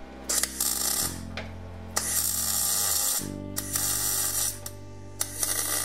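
MIG welder's arc crackling on sheet steel in four short bursts of about a second each, as brackets are welded into a car's floor pan.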